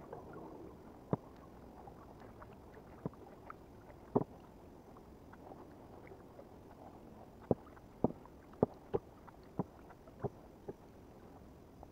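A kayak being paddled: a faint wash of water with sharp knocks of the paddle, a few scattered at first, then about seven in quick succession in the second half.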